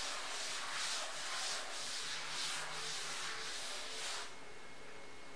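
Chalkboard duster rubbed back and forth across a chalkboard, wiping off chalk in about two strokes a second, stopping about four seconds in.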